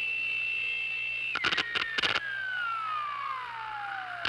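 An electronic tone: a steady high pitch that drops about a second and a half in and then glides slowly downward, with a few short crackles around the drop and again at the end.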